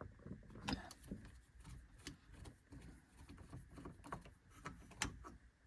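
Faint, irregular small clicks and scrapes of a hand tool turning out a screw that holds the ignition-lock plate on a steering column, with sharper clicks about three-quarters of a second in and again about five seconds in.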